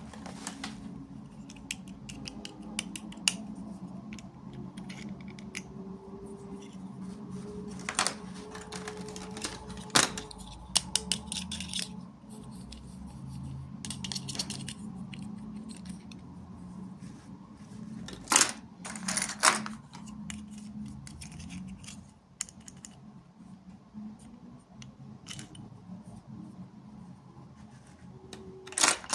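Small plastic toy pieces and packaging being handled: scattered light clicks, taps and rustles, with a few sharper clicks among them.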